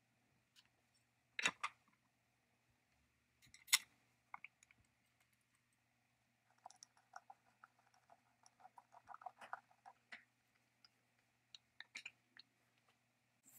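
Faint clicks and knocks of a screwdriver and metal chainsaw handle parts being fitted and screwed together. Two sharper knocks come in the first four seconds, then a run of quick light ticks around the middle, then a few more clicks.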